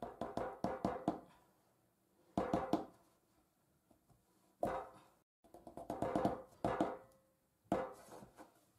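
Several short clusters of quick taps and knocks, some ringing briefly, from a hollowed black radish being handled and pierced with a toothpick on a hard surface.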